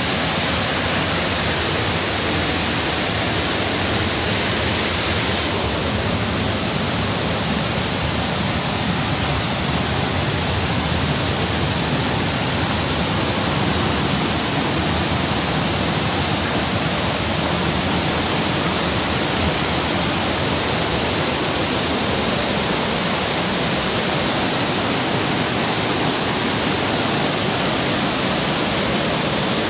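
Steady rush of a rocky stream cascading over boulders.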